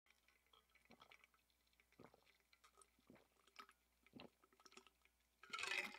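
Near silence with faint gulps of a person drinking from a stainless-steel bottle, roughly one swallow a second, and a brief louder sound near the end.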